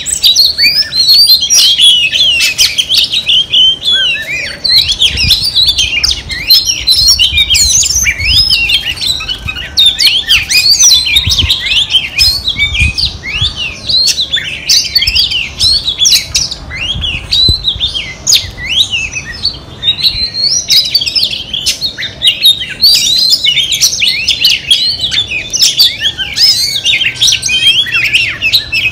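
Female oriental magpie-robin singing a continuous, rapid run of varied whistles, trills and sliding notes with hardly a pause. This is a female's song of the kind kept to goad a male magpie-robin into singing.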